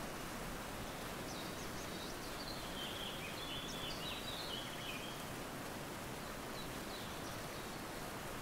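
Steady outdoor noise with birds chirping over it: a run of short chirps from about one to five seconds in, then a few fainter ones.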